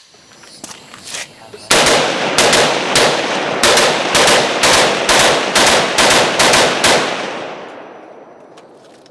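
Rapid semi-automatic rifle fire from a .300 Blackout AR with a binary trigger: about a dozen shots over roughly five seconds, many in quick pairs as the trigger fires on both pull and release. The echo fades away afterwards.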